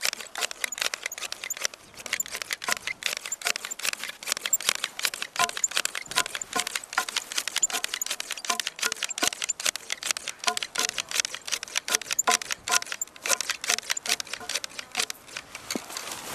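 Long-bladed hand grass shears snipping grass close to the ground, a rapid run of crisp metal cuts at about five snips a second that stops near the end.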